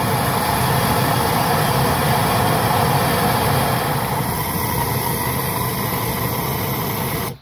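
Handheld propane torch burning with a steady, loud hiss-roar as its flame heats a rust-seized nut on a car's steering tie rod to free it. The sound stops abruptly near the end.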